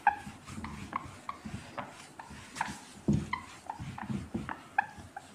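Whiteboard eraser rubbing back and forth across the board, squeaking in a quick run of short, high chirps, a few a second.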